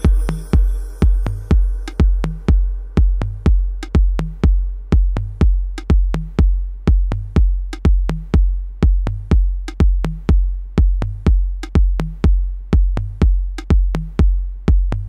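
Deep electronic bass drum thumping steadily about twice a second, each beat with a sharp click on the attack. A faint synth pad fades out in the first moments, and the beat stops at the very end.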